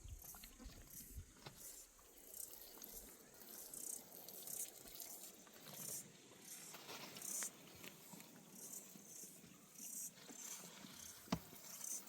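Faint water trickling and splashing, with light rattles and one sharp click near the end.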